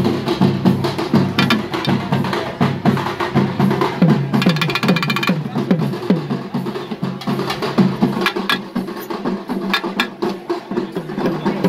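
Festival drumming in a fast rhythm: many quick drum strokes whose pitch slides downward, with a brief rapid roll about four seconds in.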